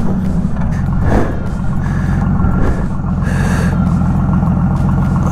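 Honda Valkyrie's liquid-cooled 1500cc flat-six engine running steadily under way, a loud, even low note.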